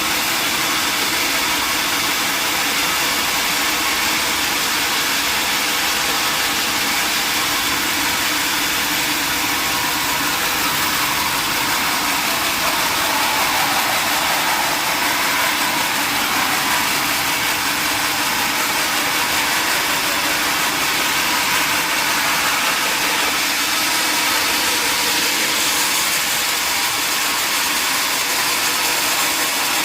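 Sawmill saw and its drive running steadily, cutting through a mahogany log. Its pitch sags and recovers about halfway through.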